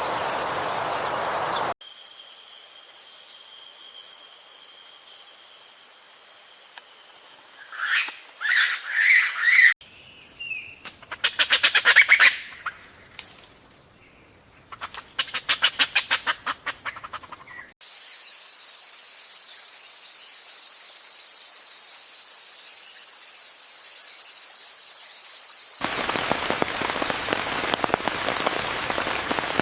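Forest bird calls in several cut-together clips: a few short rising calls over a steady high-pitched background tone, then fast rapid-fire trilling notes. Near the end comes a steady hiss of rain.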